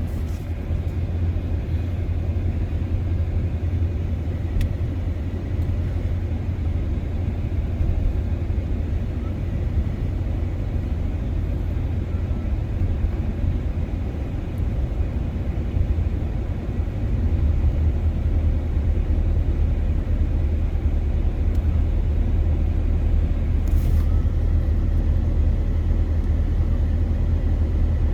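Steady low rumble of a pickup truck's engine and tyres on the road, heard from inside the cab while driving. It grows a little louder about two-thirds of the way through.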